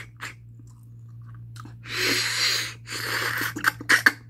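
Sucking and slurping at a piece of mutton held to the mouth, drawing out what is inside the bone: two long slurps about two and three seconds in, then quick wet mouth clicks of chewing near the end.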